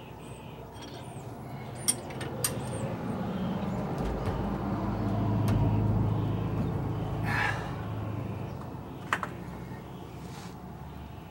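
A vehicle passing by: its engine and tyre hum swells up to a peak about halfway through and then fades away. A few sharp metallic clicks and a brief scrape cut through it.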